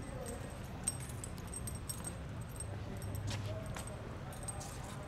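Light metallic jingling and ticking over a steady low rumble from the surroundings.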